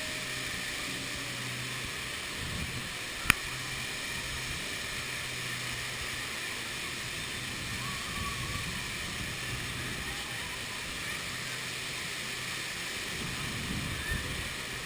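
Steady rush of fountain water jets spraying, heard from a chair swing ride circling the fountain, with one sharp click about three seconds in.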